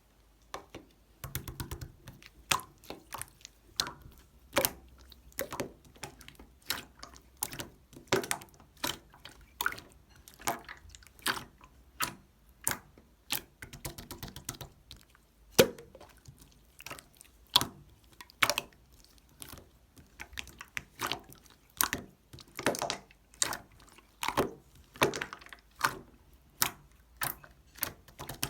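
Clear slime being squished and poked, giving an irregular run of wet, sticky pops and clicks, one to three a second and sometimes in quick clusters.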